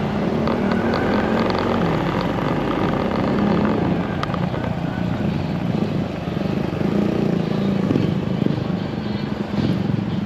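Small Honda 125 motorcycle engine running steadily while the bike is ridden at low speed, its pitch rising and falling slightly.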